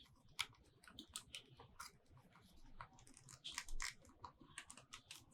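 Faint clicks and small knocks of a display mounting bracket and its spacers being handled and fitted by hand, a scattered run of light ticks with a slightly louder cluster past the middle.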